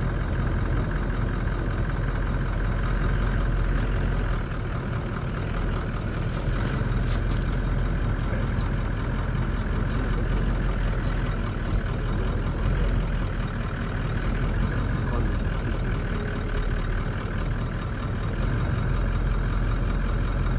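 Vehicle engine running steadily at low revs.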